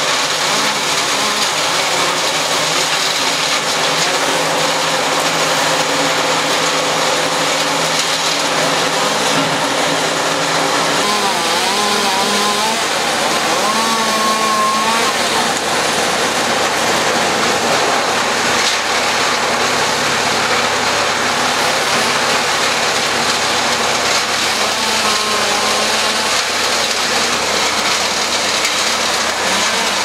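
Bandit hand-fed wood chipper running: a loud, steady engine-and-drum drone. Its pitch wavers for a few seconds around the middle.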